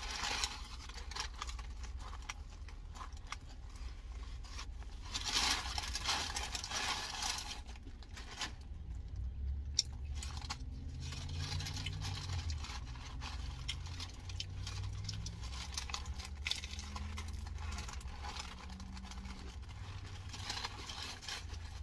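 Paper taco wrapper crinkling and rustling by hand in a few bursts as a crunchy taco is unwrapped, over the steady low rumble of a car cabin.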